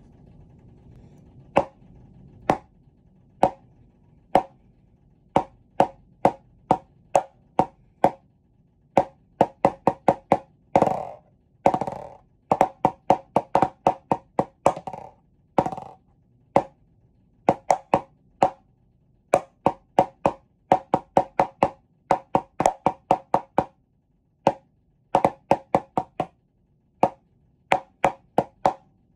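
A solo percussion piece played with sticks on a dry, wood-block-like instrument. Single knocks about a second apart at first, then quick runs and clusters of strikes from about nine seconds on, with two longer drawn-out strokes partway through.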